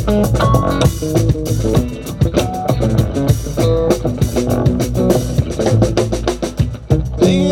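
Live band playing an instrumental passage, with guitar lines over bass guitar and a steady drum kit beat.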